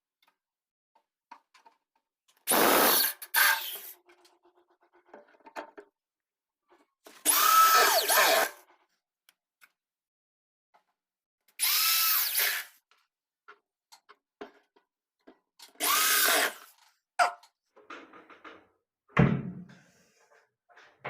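Power drill-driver running in four short bursts, a few seconds apart, each time speeding up and slowing down, as it drives screws for a hydraulic gas-strut fitting. A dull thump comes near the end.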